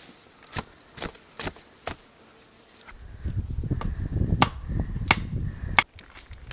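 A run of sharp knocks, about two a second, then a low rumble with a few more knocks about a second apart.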